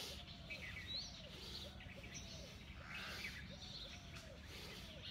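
Birds chirping and calling: scattered high chirps and a lower call repeated about twice a second, over a steady low background rumble.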